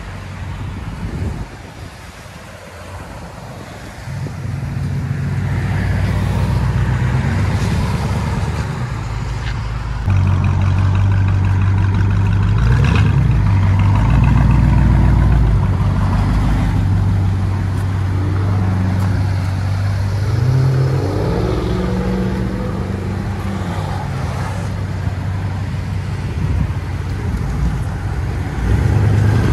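1978 Ford LTD's V8 running through a straight-piped true dual exhaust with no mufflers. It gets louder about four seconds in and again about ten seconds in, with a couple of brief rises in engine pitch.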